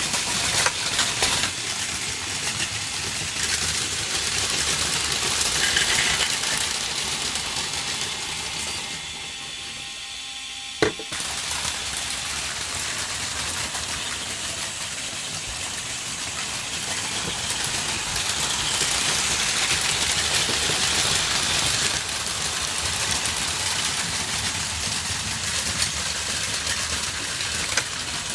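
Battery-powered Plarail Advance toy trains running on plastic track, their small motors whirring and wheels rattling in a steady noisy hum. The sound thins out briefly about a third of the way in and comes back with a single sharp click.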